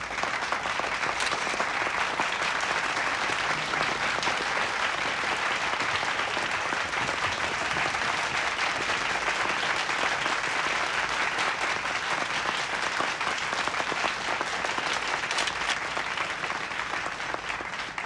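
An audience applauding steadily, starting suddenly and easing off slightly near the end.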